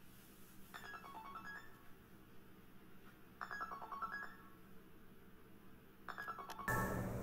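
iPhone ringtone for an incoming call: a short run of bright, stepped notes that plays three times, about every two and a half seconds. Louder room noise with a low hum comes in near the end.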